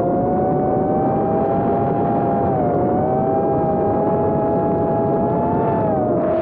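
Brushless motors and propellers of a BetaFPV Crux3 3-inch FPV drone on a 2S battery, heard from its onboard camera. A steady whine of several close tones that dips in pitch briefly about two and a half seconds in and again near the end as the throttle eases.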